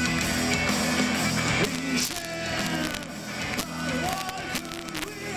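Live rock band playing on electric guitars, bass and drums: loud, sustained full chords, then the music drops in level about two seconds in and held notes slide in pitch over the quieter backing.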